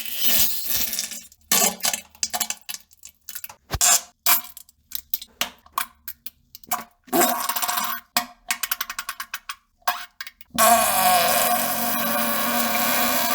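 Farting and pooping sounds: a string of short, irregular sputters and splats, then, about ten seconds in, one long fart with a wavering pitch.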